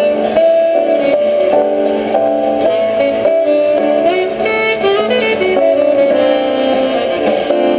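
Background instrumental music, with a melody moving through held notes at a steady level.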